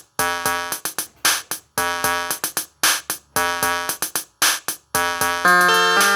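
Electronic instrumental intro: a drum machine beat with short synthesizer chords, repeating about once a second, with a longer held synth chord coming in near the end.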